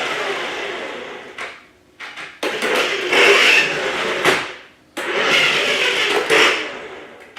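Toy remote-control Dodge Challenger driven in short bursts: a whirring that starts sharply and fades away over about two seconds, three times.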